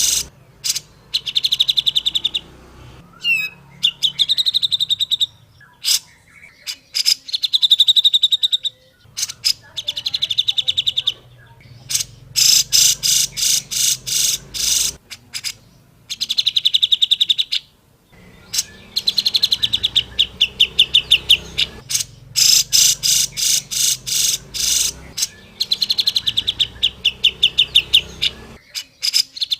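Cucak jenggot (grey-cheeked bulbul) singing: rapid runs of repeated sharp notes in phrases of one to two seconds, with short pauses between them.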